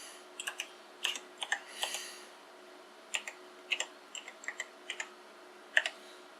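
Keys of an Apple M0110A keyboard pressed one at a time, a string of separate clicks at an uneven pace, as each freshly repaired key switch is tested.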